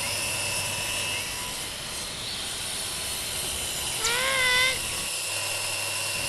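Small electric toy motor whirring steadily, driving a DIY miniature tractor. About four seconds in, a short, high, wavering call sounds over it.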